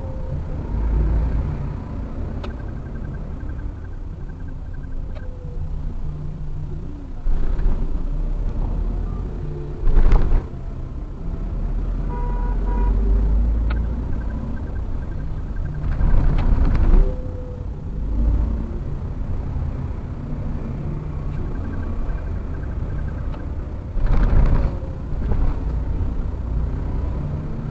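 Car driving in traffic, heard from inside the cabin: steady low engine and road rumble that swells louder briefly three times.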